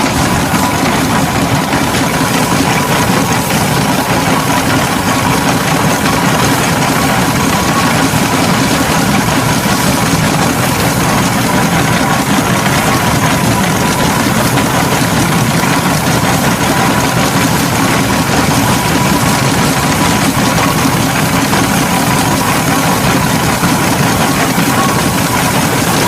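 Fowler BB1 steam ploughing engine running as it travels on the road, a steady mechanical noise with a faint steady whine.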